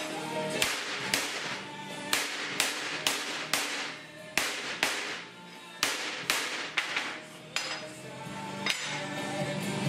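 Hammer blows on steel, about a dozen sharp strikes, mostly half a second apart with short pauses, over background music. Typical of flattening a bent steel plow mounting ear.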